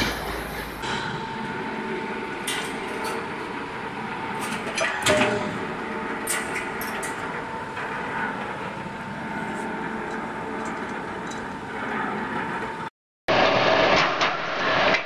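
Wire-mesh bending machine humming steadily, with scattered metallic clicks and clinks from the welded wire mesh. Near the end the sound cuts out for a moment, then comes back as louder clattering workshop noise.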